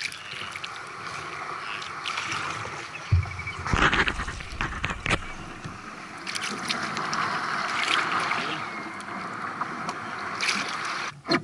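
Water trickling and swishing along a sea kayak's hull as it glides through calm water, with paddle splashes. A louder burst of splashing and knocking comes about four seconds in.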